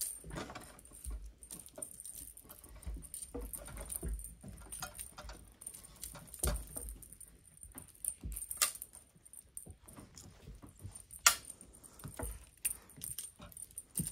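Maine Coon kitten batting at and biting a feather wand toy on a plush perch: soft, irregular rustling and scratching, with a few sharp clicks, the loudest about eleven seconds in.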